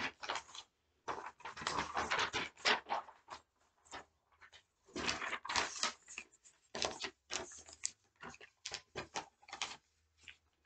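Sheets of paper rustling and flapping as they are handled and shuffled, in irregular bursts with short pauses between.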